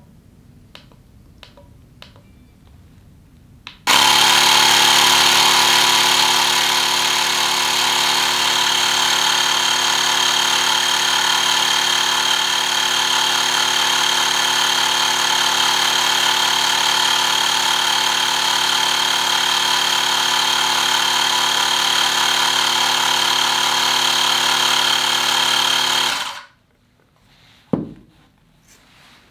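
Xiaomi Mijia portable electric air pump switched on about four seconds in, its motor and compressor running loudly and steadily as it inflates a basketball through its hose, then cutting off suddenly near the end. A few faint clicks come before it starts.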